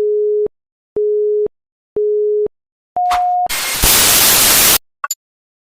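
Electronic countdown beeps: three short low beeps a second apart, then a higher final beep. A loud burst of static hiss follows and cuts off suddenly, with a brief click after it.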